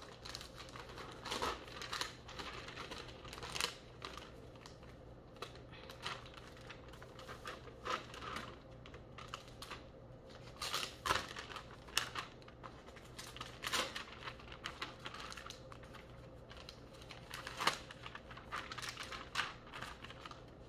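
Hands handling and unwrapping a new laptop in its clear plastic packaging: irregular taps, clicks and short crinkles of plastic, a few sharper clicks scattered through.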